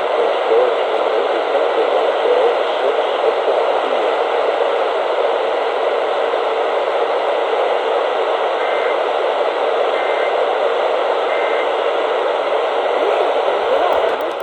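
Steady radio static: the hiss of a receiver picking up no signal. Three faint short tones come through it about a second and a half apart in the middle.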